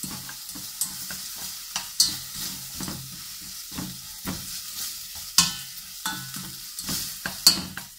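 Garlic, chili, ginger and chili paste sizzling in a little hot oil in a stainless steel pot, stirred with a spatula that scrapes and taps against the pot; the sharpest taps come about two, five and seven and a half seconds in.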